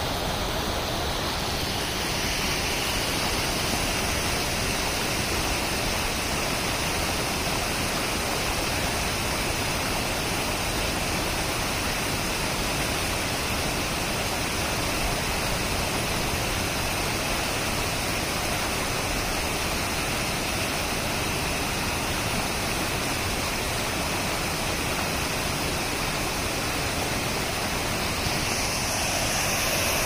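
Creek water rushing over a rocky streambed below a stepped waterfall: a steady, even rush of flowing water. Near the end it grows slightly louder and brighter.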